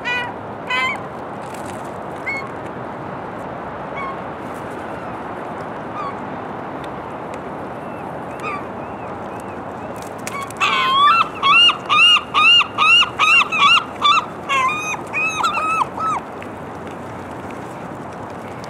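Gulls calling: a few single yelps, then a loud run of a dozen or so arched yelping calls at about two a second, lasting about five seconds, over a steady background rush.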